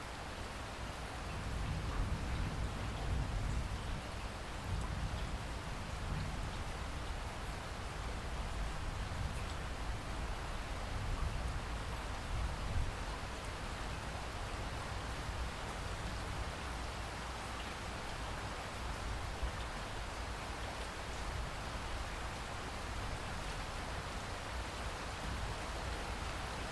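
Steady rain falling and pattering on surfaces, an even hiss throughout. A low, distant thunder rumble swells about a second in and fades out by about the middle.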